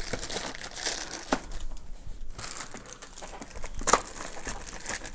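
Plastic zip-lock accessory bags crinkling and rustling as they are handled and pushed aside, with a few sharper crackles, the loudest about four seconds in.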